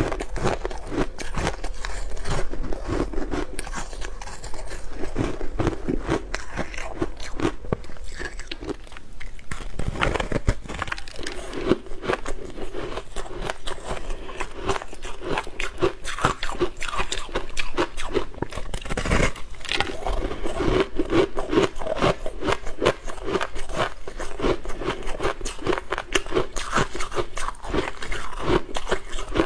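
A person biting and chewing ice, with dense, irregular crunching and crackling throughout. It starts on soft powdery ice and moves on to bites into a frozen slab of coloured ice.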